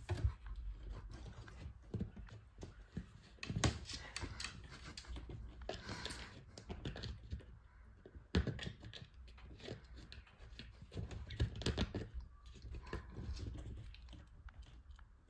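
Siamese cat pawing and clawing at the kickboard under a kitchen cabinet: an irregular run of clicks, scrapes and light knocks.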